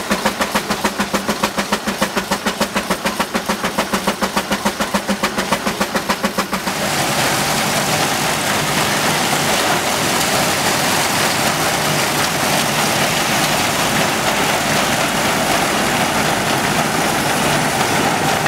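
Steam traction engine exhaust beating evenly at about four beats a second while it drives a threshing machine by belt. About six and a half seconds in it gives way abruptly to the steady, unbroken mechanical din of the belt-driven threshing machine running as sheaves are fed into it.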